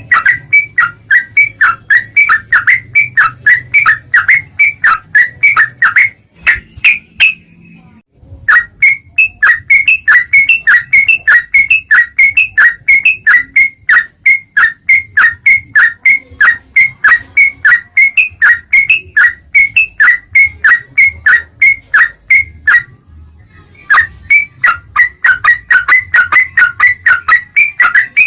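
Yellow-vented bulbul (trucuk) calling: a fast, even run of short whistled notes slurring downward, about three a second, with two pauses of about a second, one about 7 seconds in and one about 23 seconds in.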